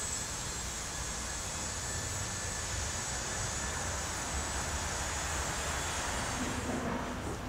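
Steady outdoor urban ambience: an even low rumble of distant traffic under a soft hiss, with a faint high steady tone that fades out near the end.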